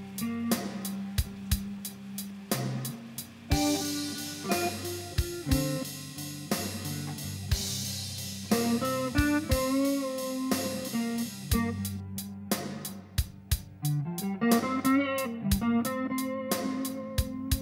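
Band music: an electric guitar melody with bent notes over a bass line and a drum kit keeping a steady beat.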